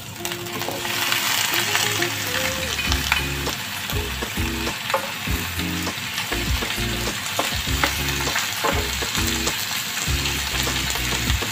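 Raw chicken pieces sizzling in hot oil as they are tipped into a frying pan of sautéed onion, ginger and garlic, the sizzle building about a second in, with a spatula scraping and stirring them in the pan.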